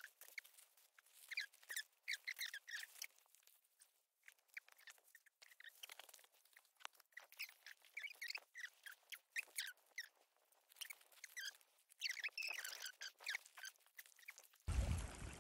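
Footsteps crunching and snapping through dry twigs, branches and dead leaves of flood debris: irregular, fairly faint crackles and clicks. Near the end they give way to a louder, steady rushing noise.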